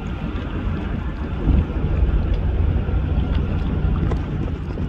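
Wind rumbling on the microphone, with a steady low hum that sets in about a second and a half in.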